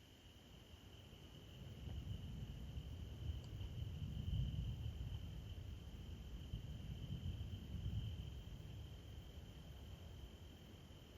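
Crickets trilling steadily in one high, unbroken tone, over a low rumbling noise that swells for several seconds in the middle and then fades.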